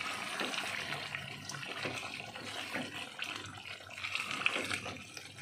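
A spatula stirring chicken pieces through thick, hot gravy in a pot, making wet sloshing and bubbling sounds with small crackles.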